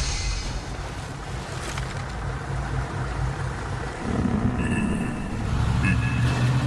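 Deep, steady rumble with a windy noise layer from an animated battle scene's sound effects, swelling louder about four seconds in. A few faint high tones sound briefly near the end.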